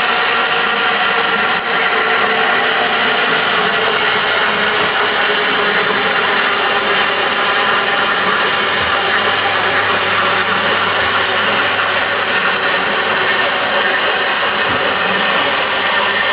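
Electric drive mechanism of a kinetic sculpture running, a steady whirring mechanical noise with faint steady tones and no pauses.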